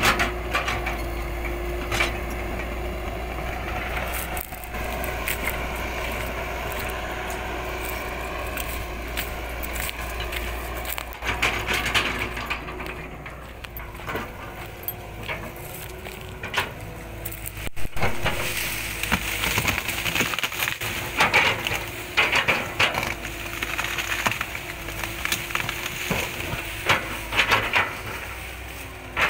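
Excavator engine running steadily under load as its bucket pushes over a big tree, with wood cracking and snapping as roots and branches break. The cracks come thick and fast in the second half.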